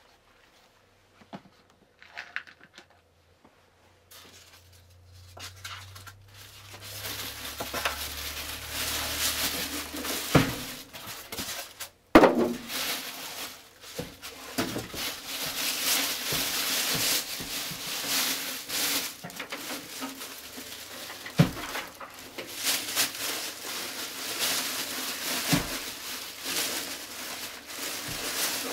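Plastic packaging bag and styrofoam packing crinkling and rustling as a PC case is unpacked from its box, starting about four seconds in. Several sharp knocks and bumps punctuate it, the loudest about twelve seconds in.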